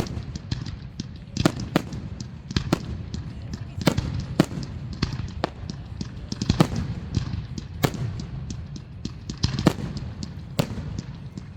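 Aerial fireworks shells bursting in an irregular series of sharp bangs, roughly one or two a second, over a steady low rumble.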